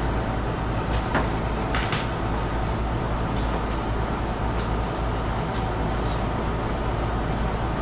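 A steady machine drone with a low hum, and a few light clicks and knocks about one to three and a half seconds in.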